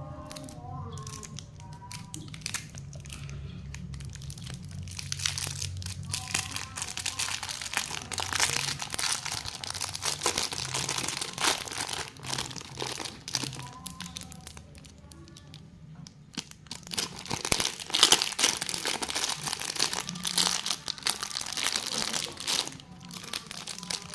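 Crinkly plastic lollipop wrappers being handled, crackling and rustling in two louder stretches with a quieter pause between them, over faint background music.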